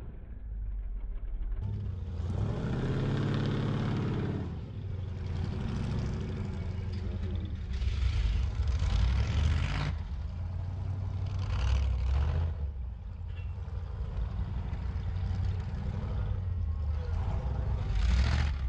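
Off-road race buggy engines running hard over a dirt course, one engine note rising and falling a few seconds in, with further swells in engine noise as buggies pass.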